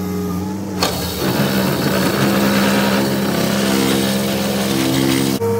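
Cat 308 excavator's diesel engine running under hydraulic load, its pitch shifting as the boom works, with a steady hiss over it from about a second in until just before the end.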